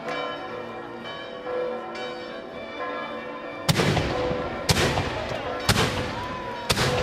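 Church bells ringing; about three and a half seconds in, firework salutes start going off with loud sharp bangs about once a second, four in all, while the bells keep ringing.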